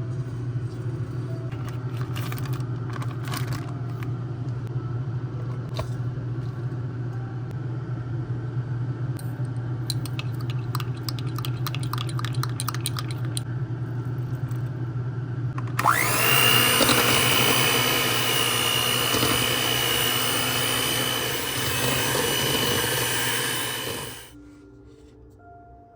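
A small kitchen appliance motor running with a steady low hum and scattered clicks. About sixteen seconds in it spins up into a louder, higher whir with a steady whine, then stops suddenly near the end.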